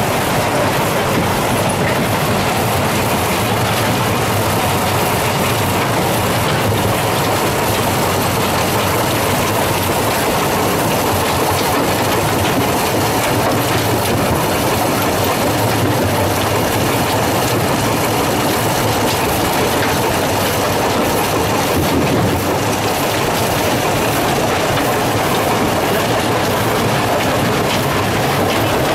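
Ore-crushing plant machinery running: a steady, loud mechanical clatter and rumble of crushers and belt conveyors, without pause.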